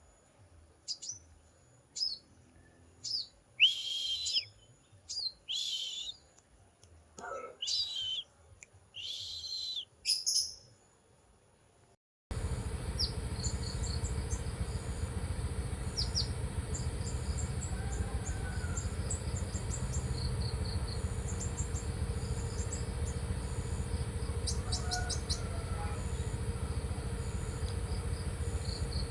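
Songbird calling: a series of short high chirps and loud, rough whistled notes for about ten seconds. About twelve seconds in, the background changes suddenly to a steady hum and hiss, and faint high chirps continue over it.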